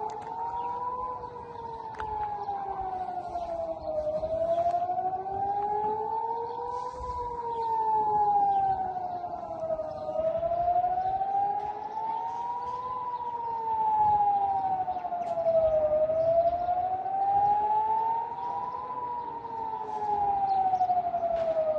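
Air-raid civil defence siren wailing, its pitch slowly rising and falling about every six seconds. It is a warning of incoming missiles.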